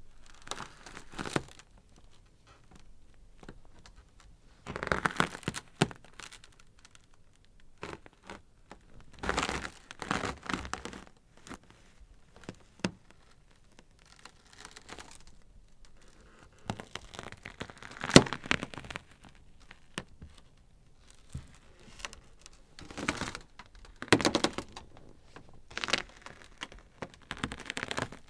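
Ice crackling: irregular clusters of sharp cracks and crinkling, separated by quieter spells, with one loudest single crack about two-thirds of the way through.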